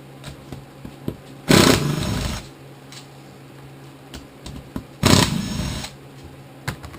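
Two short bursts of a power tool, each about a second long and a few seconds apart, with small clicks and knocks of tools on metal between them, as the snowblower transmission is taken apart.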